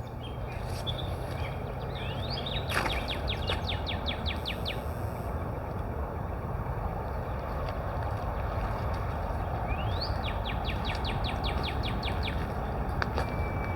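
A songbird sings the same phrase twice, about seven seconds apart: a quick rising note followed by a fast run of short, clipped notes. A steady low rumble of outdoor background noise runs underneath.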